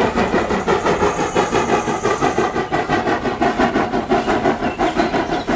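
Steam tank locomotive dressed as Thomas the Tank Engine, working as it hauls a train of coaches: a quick, even chuffing from its exhaust with steady hiss.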